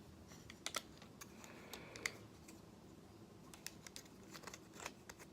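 Plastic parts of a Transformers Studio Series Voyager Starscream action figure clicking and snapping as they are folded and pegged into place during transformation: irregular faint clicks, a couple of them sharper.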